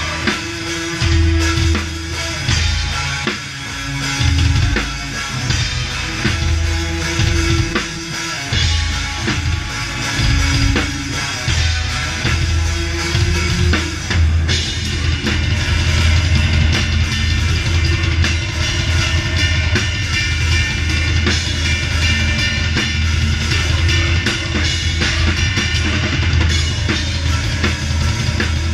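Live heavy metal band playing, heard close to the drum kit: drums and cymbals over distorted guitars and bass. About halfway through, the playing gets denser and brighter.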